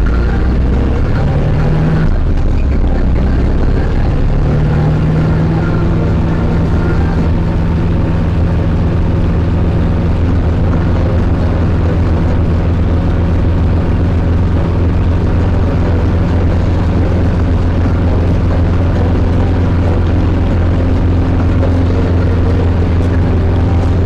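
Zetor 7011 tractor's four-cylinder diesel engine running steadily under way, heard from inside the cab. Its pitch steps up a little about four seconds in, then holds.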